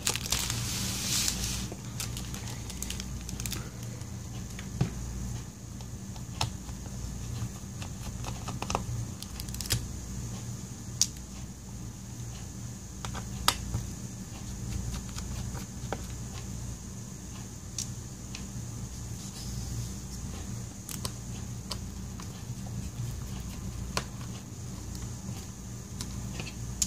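Small clicks and taps of a screwdriver working the battery screws inside an opened MacBook Air, scattered every second or two, over a steady low hum.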